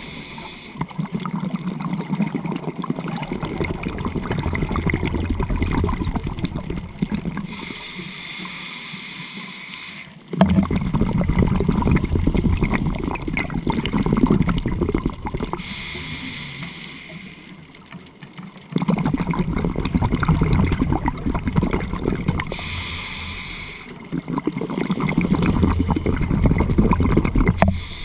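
A scuba diver breathing through a regulator underwater: a short hiss on each inhalation, then a longer bubbling rumble of exhaled bubbles, repeating about every seven or eight seconds, four breaths in all.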